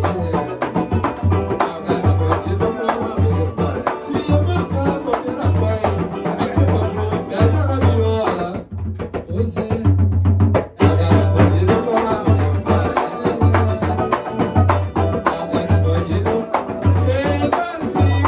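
Live acoustic samba: acoustic guitar, banjo and cavaquinho strumming over a pandeiro and a hand drum beating a deep pulse about once a second, with voices singing. The high rattle of the percussion drops out for about two seconds near the middle.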